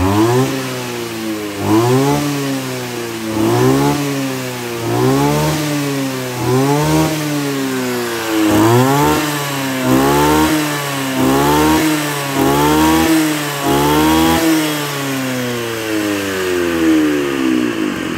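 AGRIP A270H brush cutter's 27cc two-stroke engine (34 mm bore) revved again and again: about a dozen throttle blips, each picking up sharply and falling back. Near the end it winds down slowly to idle.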